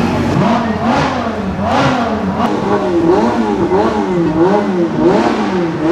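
Supercar engines revving in repeated throttle blips, the pitch rising and falling about twice a second.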